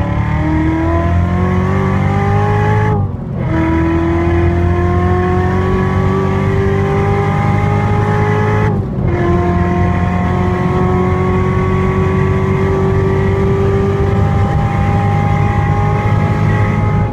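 The 2015 Corvette Z06's supercharged V8 is pulling hard at full throttle, heard from inside the cabin. Its pitch climbs steadily, drops sharply at upshifts about three and nine seconds in, then climbs again more slowly through the next gear.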